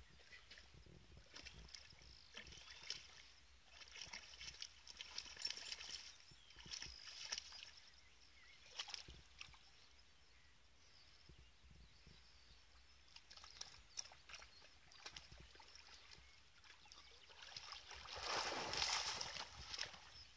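Dog swimming in a pond: faint water sloshing and lapping as it paddles, with a louder spell of splashing near the end as it wades out into the shallows at the bank.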